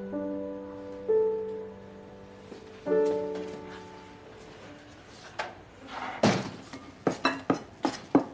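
Soft piano music with a few held notes, then from about five seconds in a cleaver chopping on a round wooden chopping block: a run of sharp, irregular chops.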